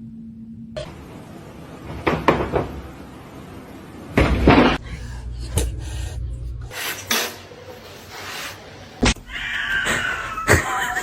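A few knocks and bumps, then a cat meowing near the end.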